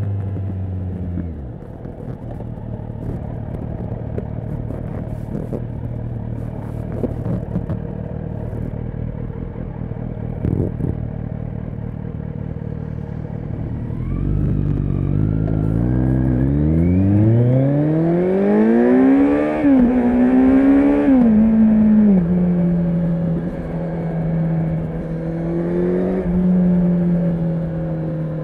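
Kawasaki Z900 inline-four motorcycle engine with an aftermarket exhaust: the revs fall off as the throttle closes, it runs low for a while, then the bike accelerates hard with the note climbing steeply and shifts up twice before settling into a steady cruise.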